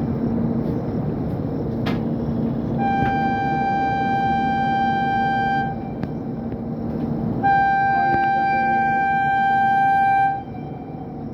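Horn of an Indian Railways WAG-7 electric freight locomotive sounding two long blasts of about three seconds each, the second louder, over the steady noise of a running train.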